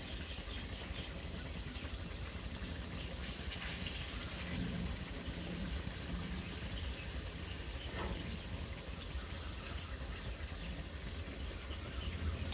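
Marinated pork slices sizzling steadily in a steel wok in their own juices, over a steady low rumble. Metal tongs stir the meat, with one sharp clink about eight seconds in.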